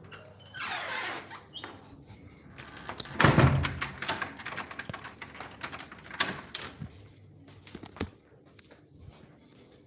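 Rattling and clicking of small hard objects being handled, with a loud thump a little after three seconds in and a single sharp click about eight seconds in.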